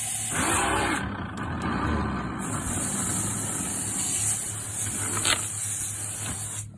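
Electric motor of a boat's anchor windlass running with a steady hum and a high hiss. The hiss drops out briefly about a second in and then returns, there is a click past the middle, and the motor cuts off near the end.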